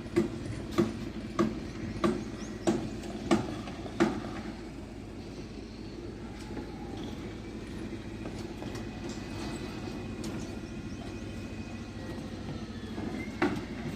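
Hammer blows on slab shuttering or steel, evenly spaced at about three every two seconds for the first four seconds, then stopping and starting again just before the end, over steady site noise.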